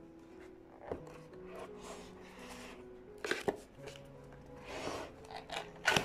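Cardboard keyboard box being handled and opened: a sharp knock about a second in, then scraping and rubbing of cardboard as the lid is pulled open, loudest about three seconds in and near the end. Soft background music plays throughout.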